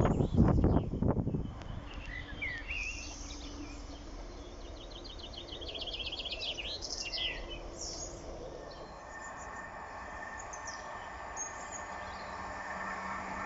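The tail of a passing train gives a few loud knocks in the first second or so. Then small birds chirp and sing over quiet outdoor background noise, with a rapid trill about five to seven seconds in. Near the end a steady hum rises as the next train approaches.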